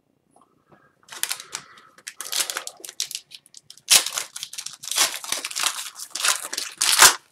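Hockey card pack's wrapper crinkled and torn open by hand: a run of crackling rustles starting about a second in, loudest around the middle and just before the end.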